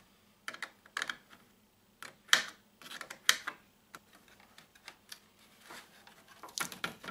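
Screwdriver working small screws out of a circuit board in a plastic phone housing: a scatter of sharp, irregular clicks and taps of metal on plastic and board, the loudest a little over two and three seconds in.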